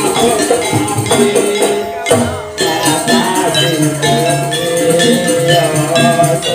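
Live gamelan accompaniment for a Jaranan trance dance: struck metal gong-chimes ring a quick repeating pattern over a steady low beat. The music dips briefly about two seconds in.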